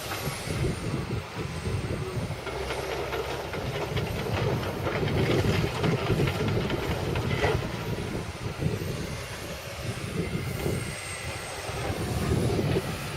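Excavator's diesel engine running under load, with irregular knocks and clatter through the middle and the level rising and falling as it works.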